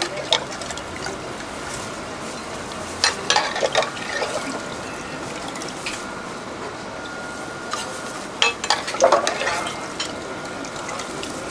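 Steel ladle stirring and scooping pani in a steel pot, clinking against the metal and splashing, loudest in two spells about three seconds in and again near nine seconds. A steady hiss and a faint steady high tone run underneath.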